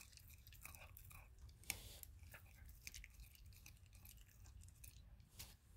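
German shepherd puppy chewing raw chicken with bones: faint wet chewing with scattered crunches and clicks, one sharper click about a second and a half in.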